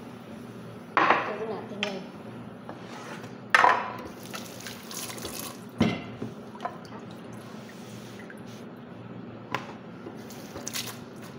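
Water running and splashing in a kitchen sink, with a few louder splashes or clatters about one, three and a half and six seconds in.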